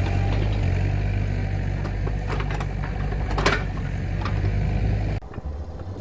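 Mini excavator's diesel engine running steadily, with a few sharp metallic clanks, the loudest about three and a half seconds in. The engine sound cuts off abruptly near the end.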